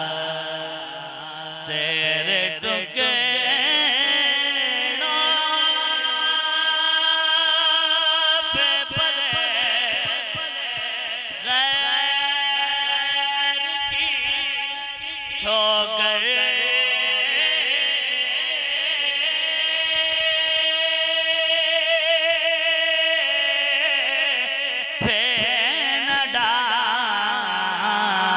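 A male voice singing a na'at through a microphone, drawing out long held notes with wavering ornaments.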